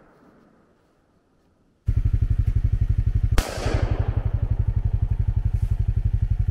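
Quad (ATV) engine idling with a rapid, even low pulsing, which starts abruptly about two seconds in. One sharp bang with a short ringing tail sounds over it about halfway through.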